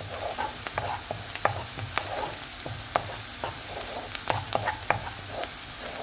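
Finely chopped onion sizzling in hot oil in a nonstick frying pan as it is stirred with a wooden spoon, with frequent sharp clicks and pops through the steady sizzle. The onion is softening and just starting to colour.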